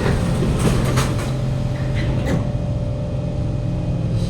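Inside a Kawasaki Heavy Industries C151 MRT carriage: a steady low hum from the loud air-conditioning and ventilation, with a few knocks and clunks about a second in and again just past two seconds. No traction motor whine comes from this carriage: its traction motor is faulty.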